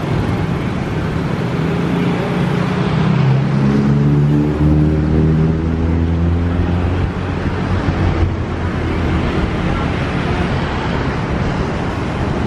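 Twin-turboprop aircraft flying past and away overhead: a loud propeller and engine drone over a steady rush of noise, its tones sliding down in pitch as it passes.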